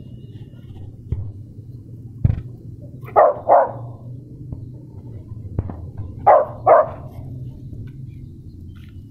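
Dog barking: two quick barks, then two more about three seconds later.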